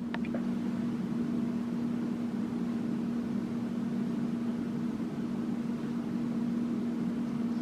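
Steady hum with one constant low tone over a faint even hiss.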